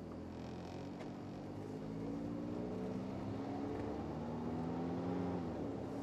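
Car engine accelerating under road noise, its pitch rising steadily, then dropping back near the end.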